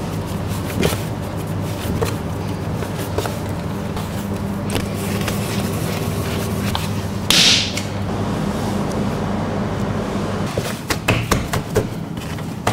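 Steady low hum of bakery machinery, with soft knocks and pats of croissant dough being folded and rounded by hand on a wooden bench. A short burst of hiss comes about seven seconds in, and a few sharper clicks near the end.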